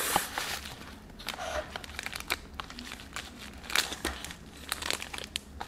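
Paper packaging around a knife crinkling and rustling as it is handled, in irregular small crackles and taps.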